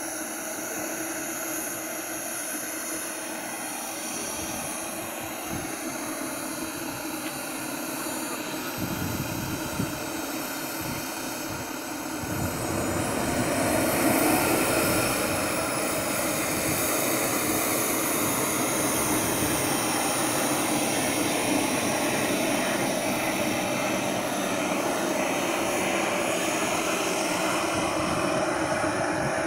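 A model jet's turbine engine running with a steady high whine. It spools up, rising in pitch and loudness about twelve to fourteen seconds in, then holds a steady run.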